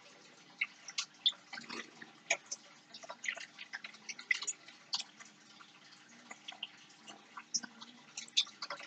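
Fingers handling a wire paper clip and thread: small, irregular clicks and ticks, several a second, over a faint steady hum.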